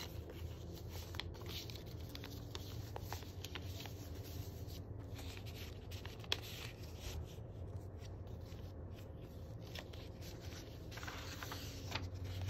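Paper rustling and sliding as photos are slipped into a paper envelope and the envelope is pushed into a paper pocket, with a sharp tap about six seconds in, then a thick journal page being turned near the end. A low steady hum sits underneath.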